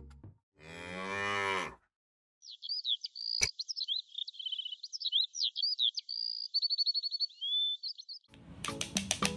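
A cow moos once, for about a second. Then a songbird chirps and trills for several seconds, and near the end a quick run of sharp taps and clicks begins.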